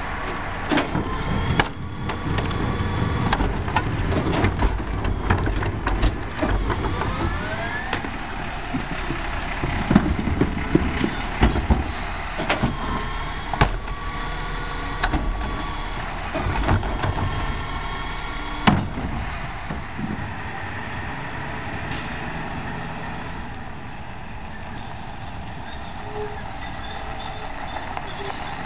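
Peterbilt 320 rear-load garbage truck with a Heil 5000 body running, with repeated knocks and bangs as wheeled trash carts are tipped into the hopper, and a rising whine about seven seconds in. The knocks stop after about two thirds, leaving a steadier truck engine as the truck drives off.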